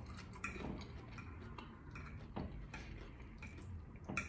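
Close-up eating sounds: chewing a mouthful of pasta with many light, irregular clicks and smacks, and a fork working in a bowl. The sharpest click comes near the end.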